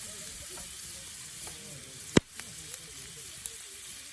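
Food sizzling steadily as it fries over a campfire, with one sharp click a little over two seconds in and a couple of faint ticks after it.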